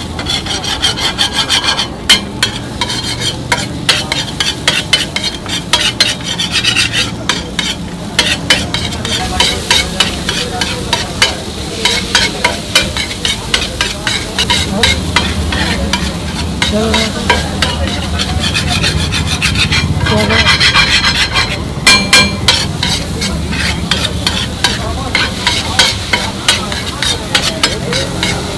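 Metal spatula scraping and clattering rapidly on a large flat iron griddle as it turns a heap of noodles, with a frying sizzle underneath.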